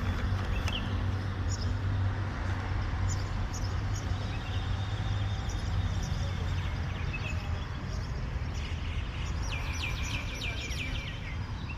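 Small birds chirping and twittering in short high calls, with a quick rapid series of chirps near the end, over a steady low background rumble.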